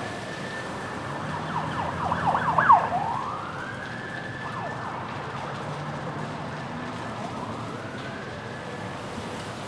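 Emergency vehicle sirens wailing, with a burst of fast yelping sweeps about two seconds in, the loudest part, then climbing back into long rising wails. A steady rushing noise runs underneath.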